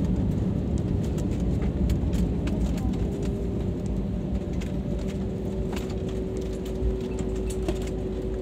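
Airbus A320neo cabin noise while taxiing after landing: a steady low rumble from the engines and the wheels rolling on the taxiway. A steady hum comes in about three seconds in, with scattered light clicks.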